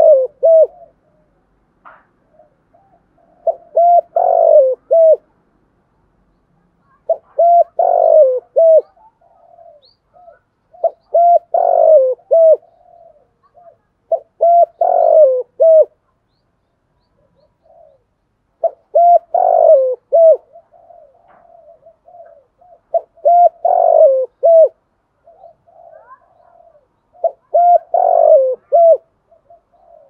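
Spotted dove cooing: about eight phrases, each a quick run of short coos building to one loud drawn-out coo, repeated roughly every four seconds.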